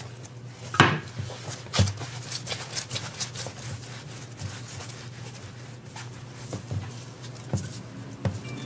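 Hands working soft donut dough on a floured table: a sharp thump about a second in and another a second later, then lighter taps and rubbing as the dough is pressed and torn, over a steady low hum.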